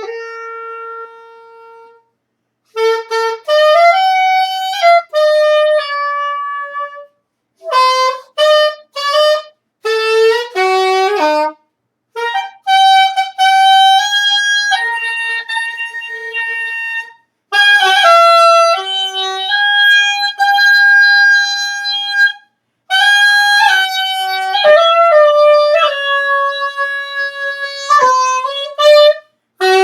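A woodwind instrument played solo: a slow melody of held notes in short phrases, with brief gaps between them.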